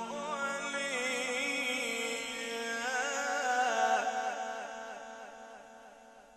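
A male reciter's voice in melodic Quran recitation (mujawwad style), holding one long ornamented vowel with rapid wavering turns that rises to its loudest about three to four seconds in, then fades away.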